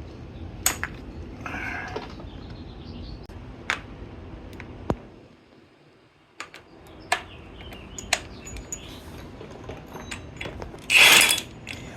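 Metal tools clinking and knocking in scattered single clicks while someone works on a motorcycle's primary drive, with one short, loud, hissing burst near the end.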